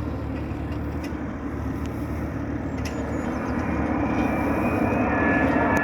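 Boeing 787 airliner's jet engines, a steady rumble growing gradually louder, with a thin whine coming in near the end.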